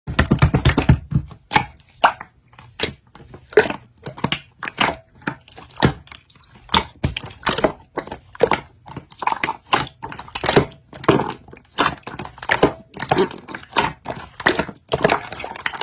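Slime being squeezed and poked by hand, a continuous run of crackly clicks and pops.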